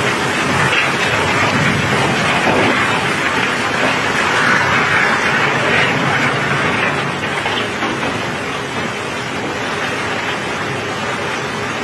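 A steady rushing rumble of cobblestones pouring and clattering as the stones are unloaded, with rain falling on the wet deck.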